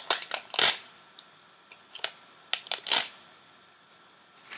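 Dry gelatin sheets crackling and snapping as they are torn into small pieces by hand. There are a few clusters of sharp crackles, the loudest about half a second in and another around three seconds in.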